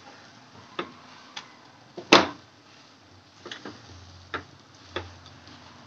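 A wooden spatula knocking against a nonstick kadai while stirring and mashing potato masala: a string of irregular sharp taps, the loudest about two seconds in.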